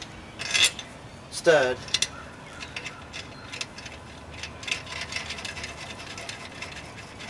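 Steel nuts being threaded onto wheel studs by hand, with many light metallic clicks and clinks as they are handled and spun on.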